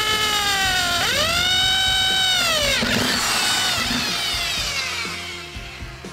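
Hand-held electric drill whining as it bores a small hole through the floor. The motor revs up, dips and revs up again about a second in, holds, and winds down about three seconds in. A shorter second run trails off before the end.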